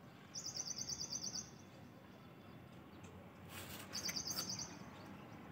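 A bird singing a fast trill of high, evenly repeated chirps, about ten notes a second, twice: a longer run near the start and a shorter one about four seconds in, over faint outdoor background noise.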